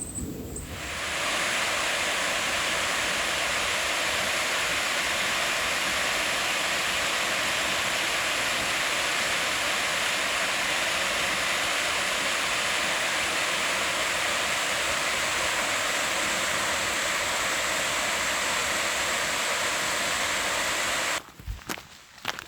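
A steady, even rushing noise that starts suddenly about a second in and cuts off suddenly near the end.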